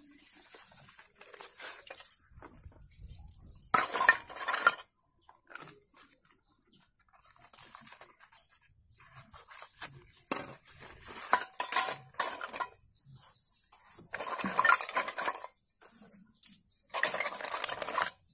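Slate pencils tipped out of small cardboard boxes clattering into a stainless steel bowl in about four bursts of a second or so each, with quieter handling of the boxes in between.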